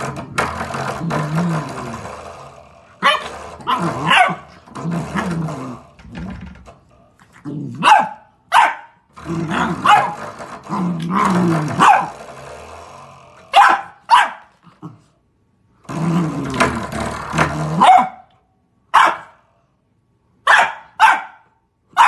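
Golden Retriever puppy growling in long wavering stretches, broken up by short, sharp, high barks, as it plays at attacking a spring door stop.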